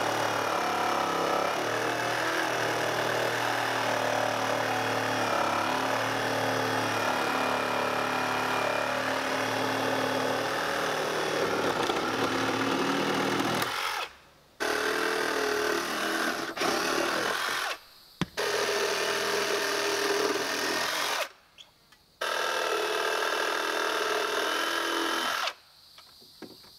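Handheld power drill running under load: one long run of about fourteen seconds, then three shorter runs of about three seconds each with brief stops between, typical of drilling or driving fasteners into timber.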